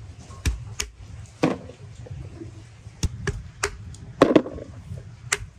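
Raw chestnuts being handled, knocking on wood and plastic: about ten sharp knocks and clicks, unevenly spaced and some in quick pairs.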